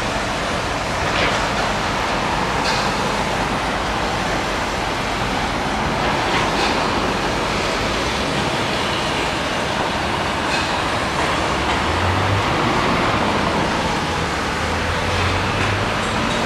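Steady noise of passing traffic, with a few faint clicks and a brief low hum twice near the end.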